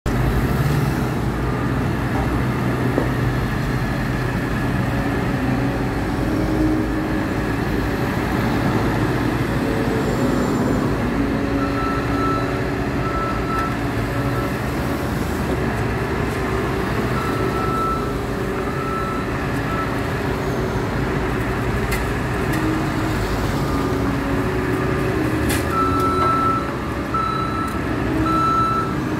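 Asphalt paver's diesel engine running steadily, with a vehicle's reversing alarm beeping in even on-off pulses that start about a third of the way in, pause for a while, and come back louder near the end.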